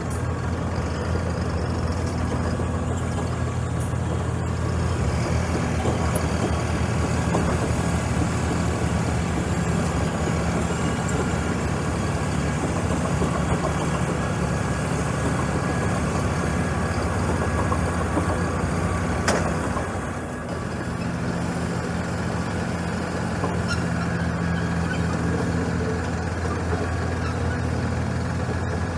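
A 2019 Massey Ferguson 4709 tractor's diesel engine running steadily, its note shifting slightly a few seconds in, with a brief click and a short dip in level about two-thirds of the way through.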